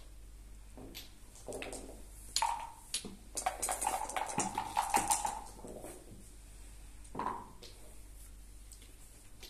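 Backgammon play: checkers clicking as they are set down on the board, and a dense rattle and clatter about halfway through as dice are shaken in a cup and thrown onto the board.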